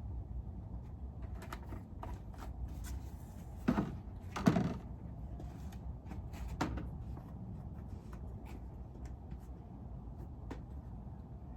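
Hands handling tools and parts: a scatter of small clicks and clunks, with two louder knocks close together about four seconds in, over a low steady rumble.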